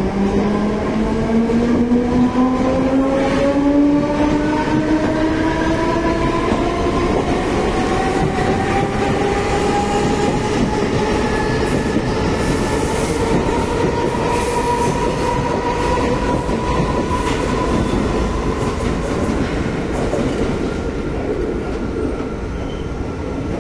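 Passenger express coaches rolling past at close range, wheels rumbling steadily on the rails. A whine climbs in pitch over the first ten seconds or so and then holds steady, with brief high squeals from the wheels around the middle.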